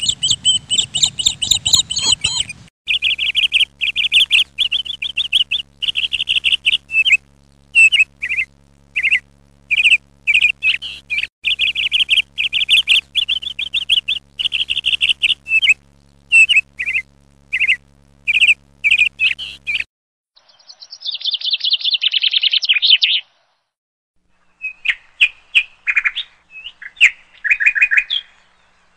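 Small birds chirping in fast runs of high, repeated chirps. The chirping stops and starts abruptly several times, with short silent gaps.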